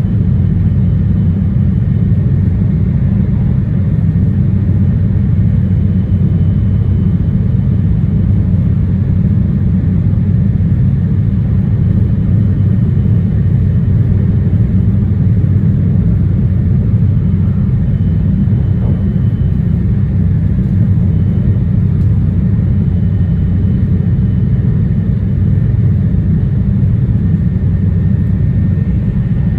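JR East E2 series 1000 Shinkansen running at speed, heard from inside the passenger car: a steady, loud low rumble of wheels and running gear with a faint high whine over it.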